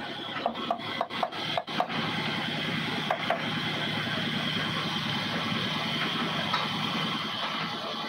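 Band sawmill running with a steady mechanical drone and a grinding rasp. A quick run of sharp knocks comes in the first two seconds, and two more about three seconds in.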